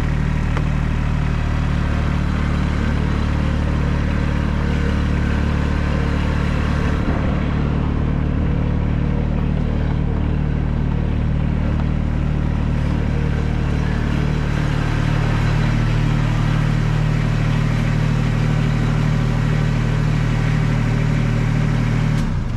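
Kubota BX2680 compact tractor's three-cylinder diesel engine running steadily, close up. Its low note shifts slightly about two-thirds of the way through, and the sound stops right at the end.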